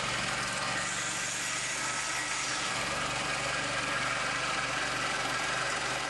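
Portable sawmill's 30 hp Kohler gas engine running steadily while its circular saw blades cut along a log, an even engine drone under a steady hiss of sawing.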